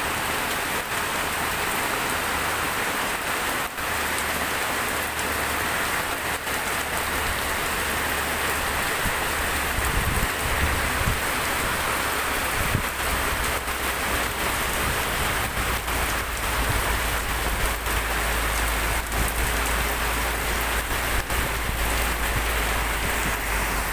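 Heavy tropical rain pouring steadily onto surfaces, a dense even hiss of falling water.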